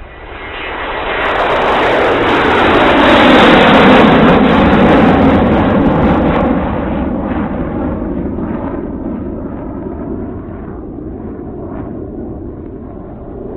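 Airplane flying overhead: the noise swells over the first few seconds, peaks about four seconds in with its pitch falling as it passes, then slowly fades away.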